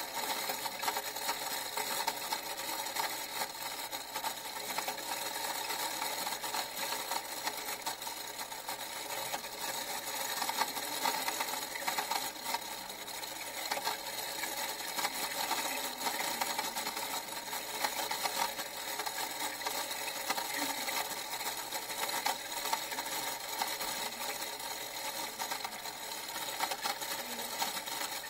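A small machine running with a fast, steady mechanical clatter.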